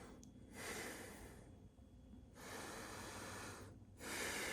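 A person breathing slowly and deeply, three long airy breaths about a second apart, as in a deep-breathing exercise.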